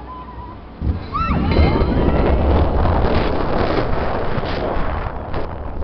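Vekoma Boomerang roller coaster train let go from the top of its lift tower about a second in: a sudden surge of loud rushing wind and a heavy rumble of wheels on the steel track as the train drops and speeds through the station, with a few sharp clacks near the end.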